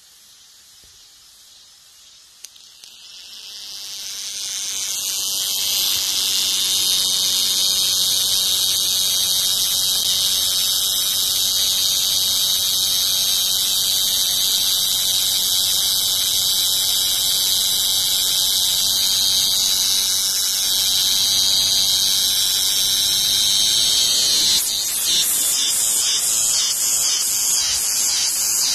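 Cicada singing: a loud, steady, high-pitched buzz that swells in over the first few seconds and holds, breaking into a rapid pulsing near the end.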